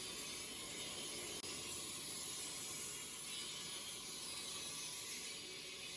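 Faint, steady hiss of background ambience with no distinct events.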